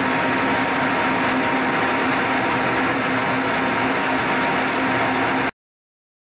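Milling machine motor running steadily with a constant hum and whir, cutting off suddenly about five and a half seconds in.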